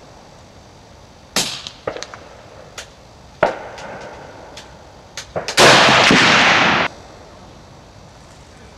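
A single shot from a 7x57 mm Mauser 93/95 rifle about five and a half seconds in, very loud and holding for over a second before cutting off. Before it come a few sharp clicks and knocks as the rifle is handled.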